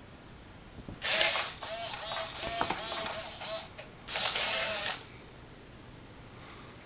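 i-Cybie robot dog's geared motors whirring as it moves: a loud burst about a second in, a run of shorter whirs, then a second loud burst that stops about five seconds in.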